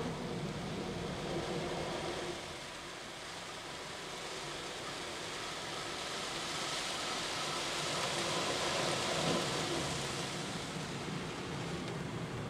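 Rotating polyethylene brushes of an automatic rollover car wash scrubbing across a foam-covered windscreen, heard from inside the car: a steady swishing rush that swells to its loudest about nine seconds in.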